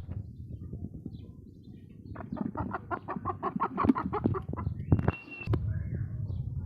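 Aseel chicken clucking in a rapid run, about seven clucks a second for a couple of seconds, starting about two seconds in. A short high steady note follows near the end.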